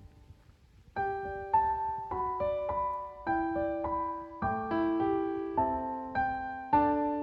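Background piano music: a gentle melody played with both hands, starting a new phrase about a second in after a near-silent pause.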